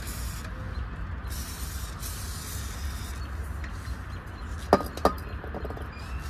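Aerosol can spraying in two hissing bursts, the second lasting nearly two seconds. Then two sharp metallic clinks about half a second apart, near the end.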